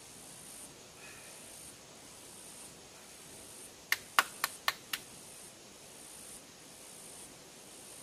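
Five sharp clicks in quick succession about four seconds in, over a steady hiss with a high buzz that pulses on and off about once a second.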